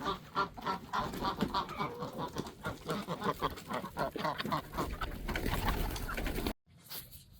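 Flock of chickens clucking, many short calls overlapping rapidly, cutting off abruptly near the end.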